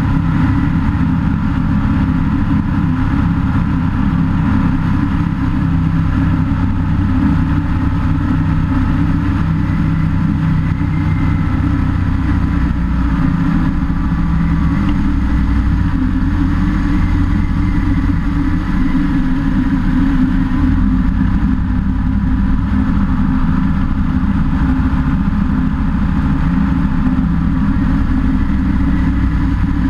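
SeaRey light-sport amphibian's engine and pusher propeller running steadily in flight, mixed with the rush of wind over a camera mounted on the wing strut.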